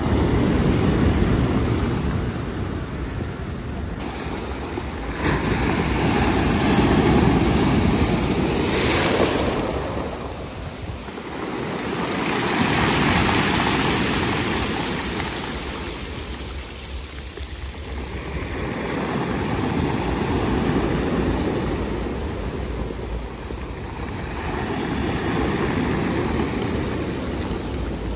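Sea waves washing onto the shore, the rush swelling and ebbing about every six seconds, with wind on the microphone.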